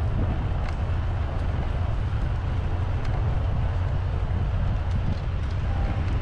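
Steady, heavy wind rumble on the microphone with road and tyre noise from a bicycle ride.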